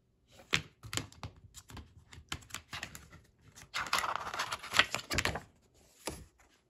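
Paper insert being slid out from under the plastic clips of an open DVD case: a run of light clicks and taps, then a scratchy paper rustle as it comes free, and one more click near the end.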